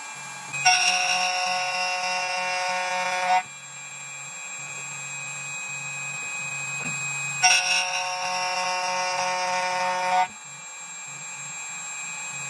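2M2TANK 2 Pro CNC key cutting machine cutting a key blank: a steady spindle hum, broken twice by a loud ringing whine of about three seconds each as the cutter bites into the metal blade.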